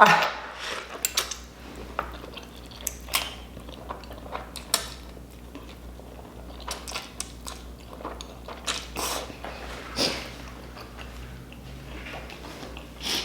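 Close-miked mouth sounds of a person eating spicy instant noodles: chewing and biting with many irregular short, sharp wet clicks and smacks, a few louder ones near the end.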